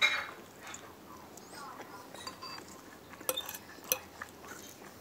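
A spoon clinking against a soup bowl: one loud ringing clink at the start, small scrapes and taps, then two more sharp clinks about three and four seconds in.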